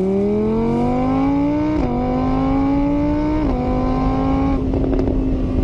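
A motor vehicle's engine accelerating through the gears: its pitch climbs, drops sharply at two gear changes, then holds nearly steady.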